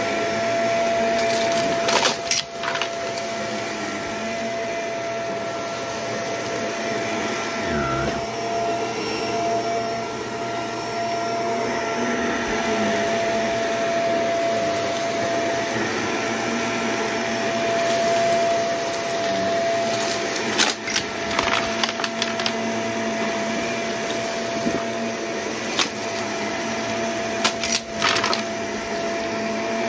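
Shark upright vacuum cleaner running steadily with a constant motor whine as it sucks up scattered pink and purple debris from carpet. Short sharp crackles come about two seconds in, around twenty seconds in, and near the end as the debris is pulled in.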